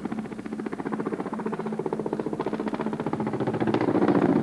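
Boeing Vertol 107 (HKP 4) tandem-rotor helicopter in a low, steep turn, its rotor blades beating in a rapid, continuous chop that grows louder near the end as it swings close by.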